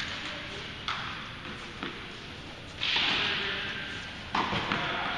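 A few sharp tennis-ball impacts, about one a second at first and another about four seconds in, each ringing briefly in the large indoor tennis hall. The loudest sound is a short hissing noise about three seconds in.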